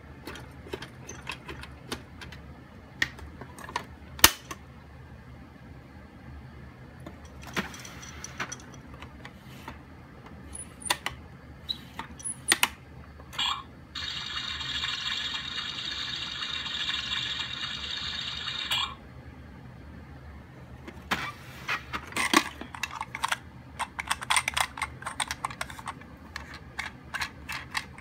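Plastic clicks, knocks and clattering as the buttons, door and sliding parts of an Anpanman activity box toy are worked by hand. About halfway through, a lit button is pressed and the toy gives a steady electronic sound for about five seconds; near the end the clatter grows dense as the small toy phone's parts are handled.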